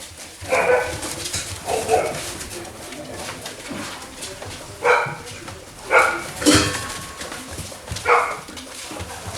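Golden retriever puppies yapping: about six short, high-pitched barks and yips, spread unevenly over several seconds.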